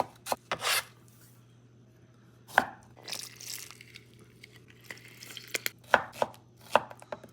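Kitchen knife chopping pico de gallo ingredients on a cutting board: sharp, irregular knocks of the blade, with a short scraping rustle in between.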